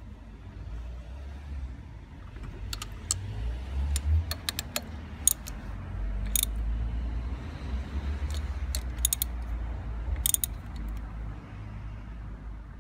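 Metal clicks and clinks of a ratchet and socket being worked on the bolts of a timing-belt sprocket on a VW 1.9 SDI diesel engine, coming in scattered bursts over a steady low rumble.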